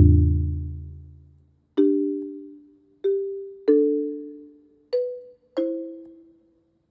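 Background music: a slow, sparse line of struck chime-like two-note chords, each ringing and fading away. A deep low note struck just before is still dying away at the start, and five more chords follow.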